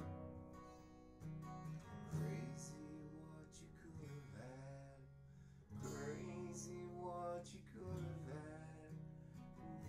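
Acoustic guitar strummed in chords, with a man singing over it in several phrases.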